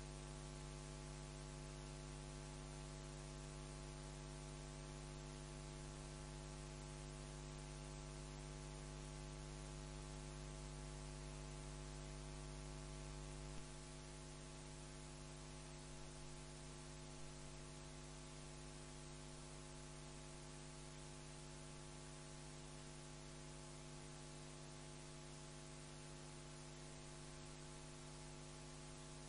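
Steady electrical mains hum with many overtones and a faint hiss, picked up in the sound system with no one speaking. There is a small click about halfway through, after which the deepest part of the hum drops a little.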